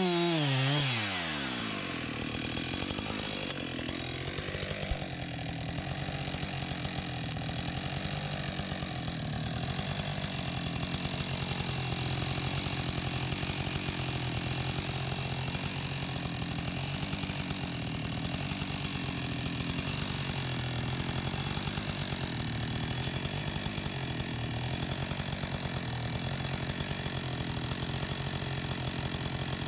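Husqvarna 576 XP two-stroke chainsaw coming off full throttle, its revs falling steeply within about the first second, then idling steadily.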